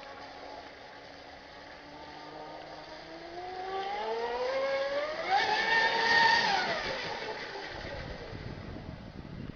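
Engine of a large RC catamaran speedboat (8.8 PS) at full throttle, rising in pitch as it builds speed and closes in. It is loudest about six seconds in, then drops in pitch and fades as the boat passes and runs away.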